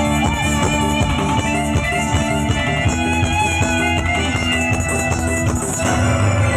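Instrumental interlude of a Hindi film song, with a repeating plucked-string figure over a beat and no singing. Near the end it shifts to a held low note.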